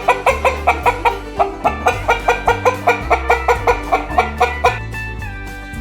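Hen clucking in a fast, even run of about five clucks a second over background music with a steady bass line. The clucking stops about five seconds in, leaving plucked-guitar music.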